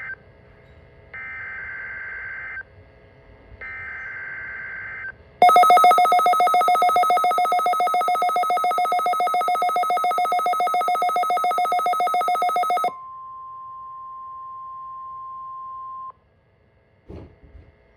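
NOAA Weather Radio weekly test signal. Three bursts of the SAME digital header's warbling data tones come about a second apart. Then a loud, rapidly pulsing electronic alarm sounds for about seven seconds, followed by the steady 1050 Hz warning alarm tone for about three seconds, with a short data burst near the end.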